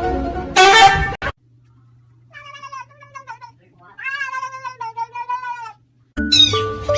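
Cat meowing: a loud, harsh call that cuts off about a second in, then two longer, wavering meows. Music starts near the end.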